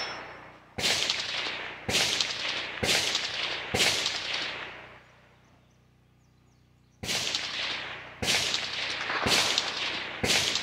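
AR-15 rifle chambered in 6.8 SPC firing eight shots: four about a second apart, a pause of about three seconds, then four more. Each sharp crack trails off in a long echo.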